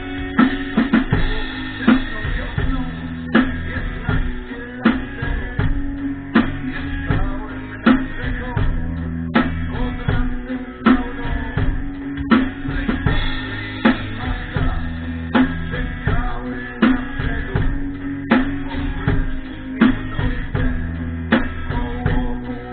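Rock music with a drum kit, bass drum and guitar playing a steady beat, heavy accented hits about every second and a half.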